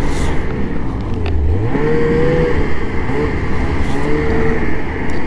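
The Ski-Doo Renegade's 600R E-TEC two-stroke twin runs under way on a packed snow trail. Its revs climb about a second and a half in, hold, ease off, and then climb and hold again a couple of seconds later.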